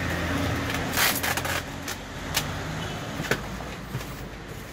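Low, steady rumble of a motor vehicle's engine running close by, loudest in the first second or so, with brief rustles and knocks of a cardboard box being handled.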